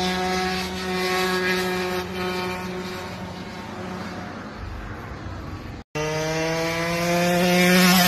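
Piaggio two-stroke race engine on a motorized bicycle, buzzing at steady high revs as the bike rides by. After a brief dropout about six seconds in, it rises in pitch and grows louder near the end as the engine revs up.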